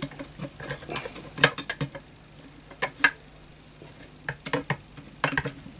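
Homemade mild-steel socket tool sliding down inside an air rifle's receiver tube, with irregular metal clicks and scrapes as it is worked into the square socket of the valve nut.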